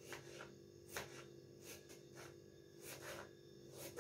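Kitchen knife slicing a peeled onion into thick slices on a cutting board: faint, irregular cuts, roughly one or two a second.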